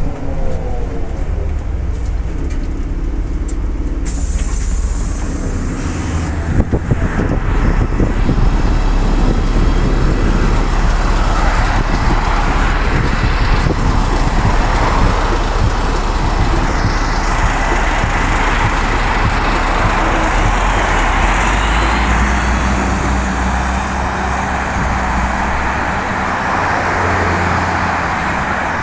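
City bus (LiAZ 5292) diesel engine running, heard first from inside the bus and then from beside it, over steady city traffic noise. A sudden hiss comes in about four seconds in, followed by a few knocks.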